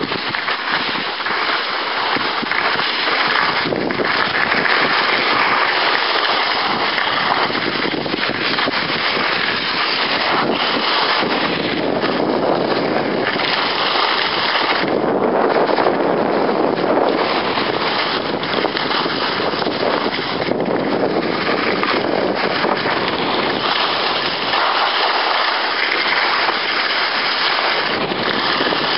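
Wind rushing over the microphone of a camera carried down a ski run at speed, mixed with the hiss of sliding on snow; a steady noise that swells and eases a little through the descent.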